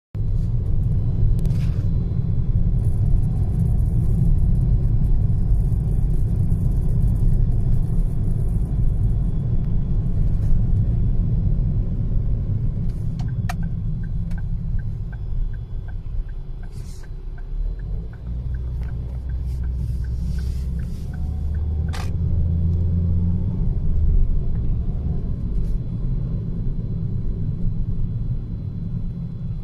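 Ford Focus making an abnormal low rumble when the accelerator is pressed, running steadily, with a run of light, regular ticks midway and a couple of sharp clicks.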